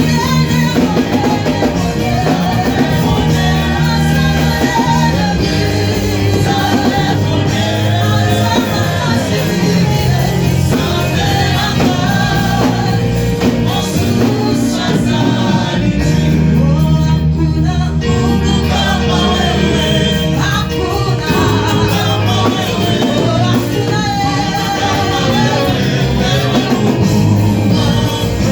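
Church worship music: singing over loud, continuous instrumental backing with a strong bass.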